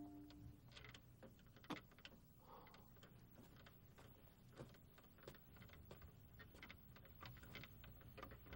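Near silence: faint room tone with scattered light clicks and ticks, after a music cue dies away at the very start.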